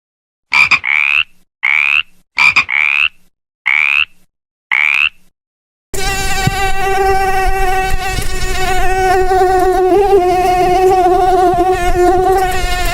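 A series of six or seven short animal calls, each rising in pitch, followed about six seconds in by a steady, high-pitched insect buzz that runs on.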